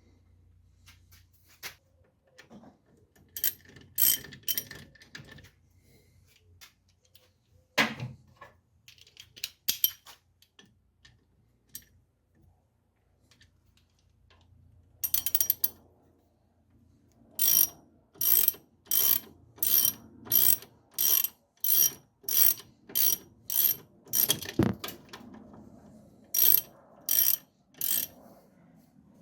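Socket ratchet being worked in short strokes to run a bolt in, its pawl clicking in a steady run of about a dozen clicks, roughly one and a half a second, after the halfway point and a few more near the end. Before that, scattered metallic clinks of tools and one sharper knock.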